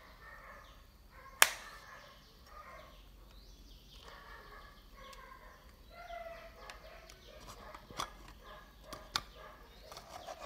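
Irregular clicks and taps of plastic and metal parts as a small alarm clock is put back together, its dial and movement fitted into a metal case and the back cover pressed on. One sharp click about a second and a half in is the loudest, with two more clear clicks near the end.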